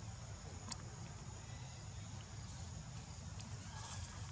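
Insects droning in one steady high-pitched tone over a low background rumble, with a faint click just under a second in.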